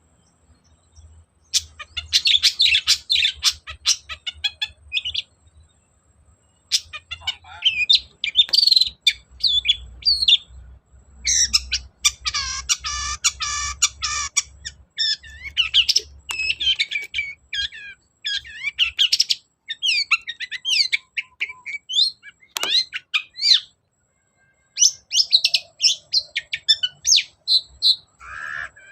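Long-tailed shrike singing a fast, scratchy, varied chattering song in bursts of a few seconds, broken by short pauses.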